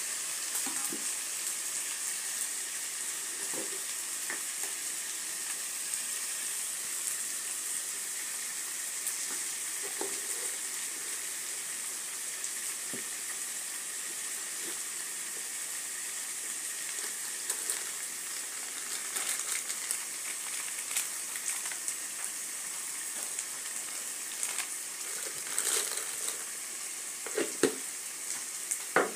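Chicken pieces frying in oil in a metal pan, a steady sizzle, with a metal spoon scraping and clinking against the pan now and then, more often in the last ten seconds or so.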